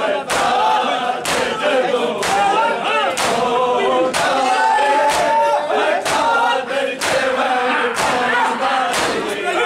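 A crowd of men chanting a Punjabi noha in unison, with matam: open hands striking bare chests together in a steady beat of about one strike a second.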